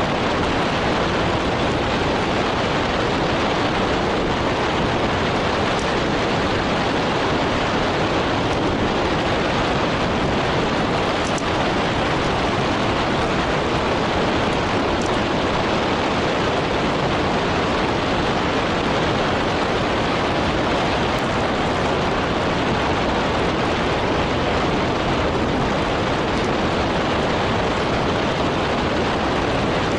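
Heavy wind noise on a bike-mounted action camera's microphone during a fast road-bike descent at about 55 to 65 km/h, a steady, even rush.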